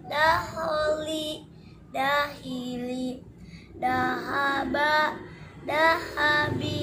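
A young girl chanting Arabic syllables aloud from a Tilawati reading book, in the melodic Tilawati recitation style: four short sung phrases with held, gliding notes and brief pauses between them.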